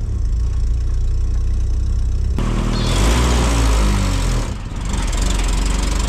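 Car engine idling, then rising in speed about two and a half seconds in and easing back near the end while the clutch pedal is worked. It demonstrates a worn clutch disc that engages very high, only when the pedal is almost fully released.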